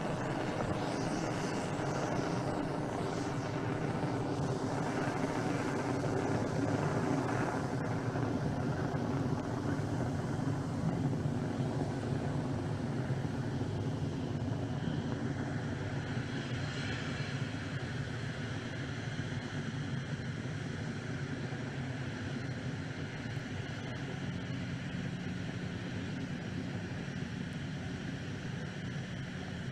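Firefly Alpha rocket's first-stage engines during ascent shortly after liftoff: a steady, dense rumbling roar that eases a little toward the end.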